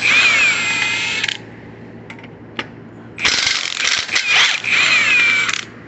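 Handheld power tool whirring and ratcheting in two bursts, the first about a second and a half long and the second about two and a half, with a whine that drops and then holds steady, backing out fasteners during an engine teardown.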